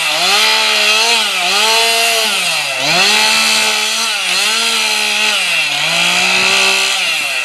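Chainsaw engine running at high revs while carving into a wooden log. Its pitch sags about six times as the chain bites into the wood and recovers between cuts.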